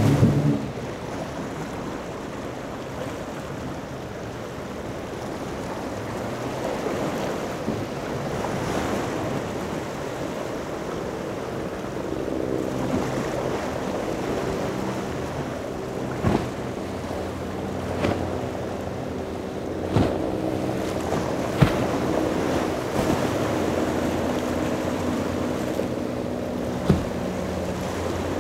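Surf and wind noise on the microphone, with a powerboat's engines running from about halfway through and several sharp smacks in the second half.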